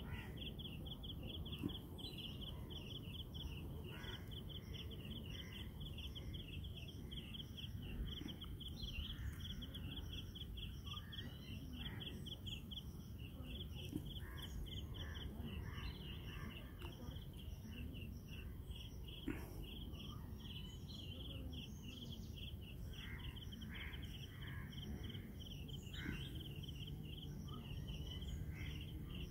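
An insect chirping steadily in a rapid, even pulse of a few chirps a second, over low outdoor background noise, with a few faint clicks.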